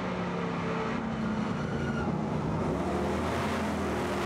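Race trucks' 427-cubic-inch (7-litre) V8 engines running hard on the circuit, several at once. Their pitch rises and falls with the throttle.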